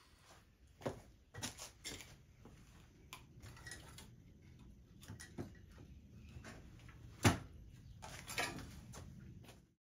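Scattered light knocks and clunks of metal being handled as the boiler and smokebox of a miniature steam locomotive are worked by hand on the frames. The loudest knock comes about seven seconds in, over a low steady hum.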